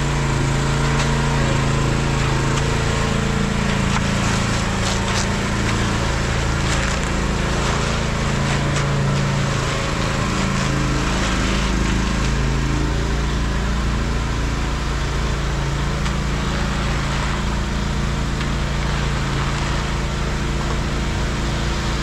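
Small engine of a motorized concrete buggy running steadily, with light scrapes and taps of rakes working wet concrete in the first half.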